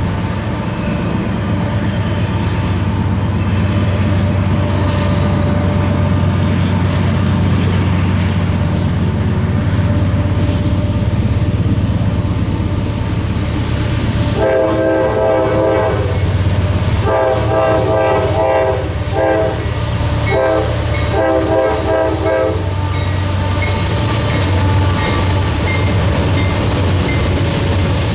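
Intermodal freight train running past fast, its locomotives giving a steady heavy rumble with some wheel clatter. About halfway through, the locomotive's multi-note chord horn sounds in a series of about five blasts, long and short, over some eight seconds.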